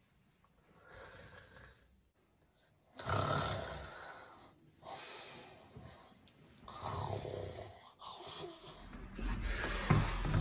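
A person snoring in their sleep: separate snores every couple of seconds, the loudest about three seconds in.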